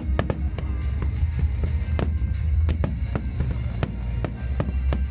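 Fireworks going off in an irregular string of sharp bangs, over loud music with heavy bass and drums.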